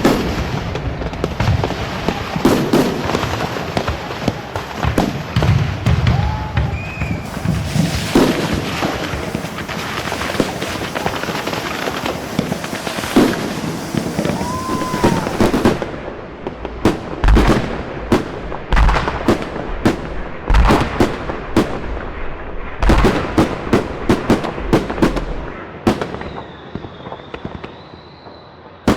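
Fireworks going off: dense crackling and bangs for about the first half, then separate sharp bangs with deep booms, and a short whistle heard a few times. A steady high whistle starts a few seconds before the end.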